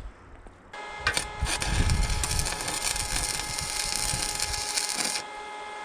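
Electric arc welding on a steel frame: a crackling hiss that starts about two seconds in and cuts off abruptly about five seconds in, over a steady high whine.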